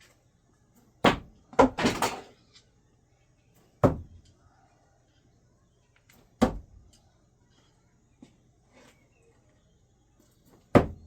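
No-spin thrown screwdrivers striking a target: sharp knocks, about a second in, then two in quick succession just before two seconds, then single knocks about four seconds in, at six and a half seconds and near the end.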